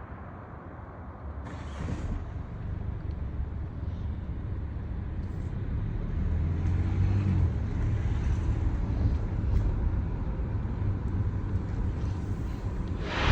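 A low, steady rumble, like a vehicle engine or traffic, that slowly grows louder.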